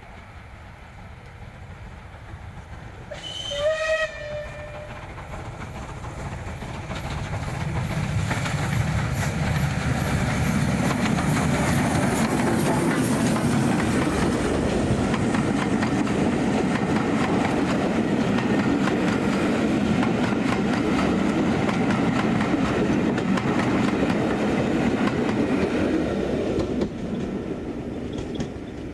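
Steam locomotive sounding one short whistle blast about three seconds in, then approaching and passing with its train of coaches. The exhaust and running gear build to a loud, steady rumble with the clickety-clack of coach wheels over rail joints, which drops away suddenly near the end as the last coach goes by.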